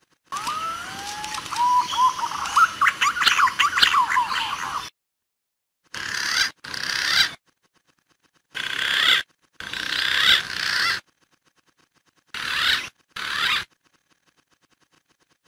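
Recorded green pigeon (punai) calls used as a lure: wavering whistles gliding upward, then a quick run of chattering notes, followed by shorter snatches of calling broken by dead silence. The whole sequence repeats as a loop.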